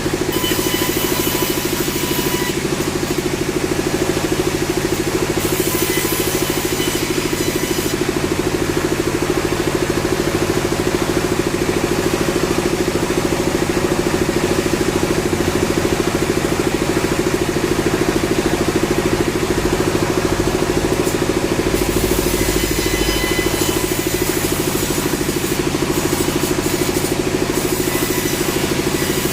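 Sawmill machinery running: a loud, steady engine-like drone that holds even throughout.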